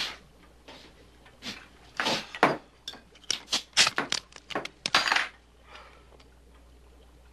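Glass bottle and kitchen things handled on a counter: a run of sharp clinks, knocks and taps, thickest between about two and five seconds in, then stopping.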